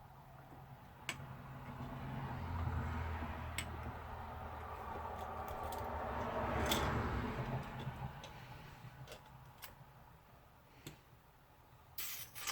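Scattered light clicks and ticks, as of small parts and tools being handled, over a low hum and rushing noise that swells over several seconds and then fades away.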